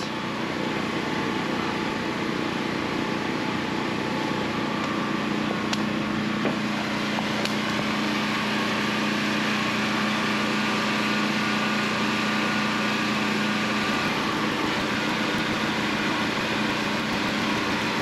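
Air compressor running steadily as it pumps air into the radiant floor-heating PEX loops to pressure-test them. A low hum within the sound drops out about three-quarters of the way through.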